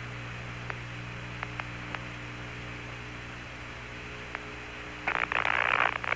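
Apollo-era space-to-ground radio channel between transmissions: a steady hum and hiss with a few faint clicks, then about five seconds in a loud burst of radio static lasting about a second.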